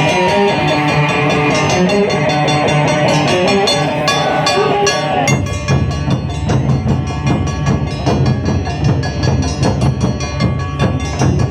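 Live Japanese festival music from a band of shamisen and taiko drums: a plucked shamisen melody over drums, then about five seconds in the melody stops and only the taiko drums carry on, with sharp wooden clicks.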